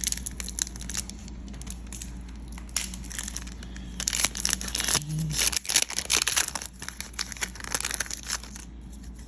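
Foil wrapper of a Pokémon trading-card booster pack being torn open and crinkled. It comes in crackling bursts, densest at the start and again about four to six seconds in.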